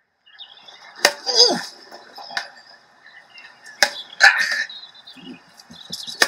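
Recorded field hockey sound effect: sticks striking a ball with about four sharp clacks, irregularly spaced, over outdoor ambience, with a couple of brief shouts between them.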